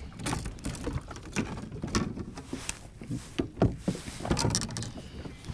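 Irregular clicks, taps and rustles of gear being handled close to the microphone in a kayak: a phone and fishing rod knocking and scraping against the boat and its fittings.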